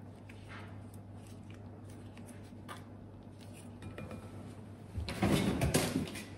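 Kitchen handling sounds of dishes and utensils: faint small clicks, then a loud burst of clatter lasting just over a second near the end.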